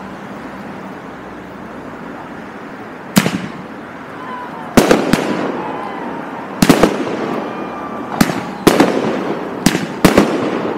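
A professional fireworks show with 25–50 mm shells firing. After about three seconds of steady background hiss, about ten sharp bangs follow, singly and in quick pairs, each with a fading echo.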